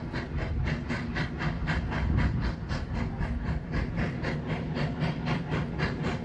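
Steam locomotive working as it approaches, its exhaust chuffing in rapid, even beats of about five a second over a low rumble.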